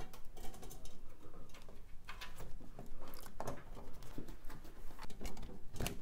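Scattered light clicks and scratchy rubbing as the main 24-pin ATX power cable and its plastic connector are handled and worked into the motherboard's socket, with a sharper click or two near the end.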